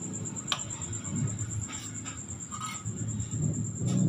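Handling noises from a CRT TV's circuit board being moved about on a workbench: light rustling with a sharp click about half a second in and a few fainter ticks, over a steady high-pitched whine.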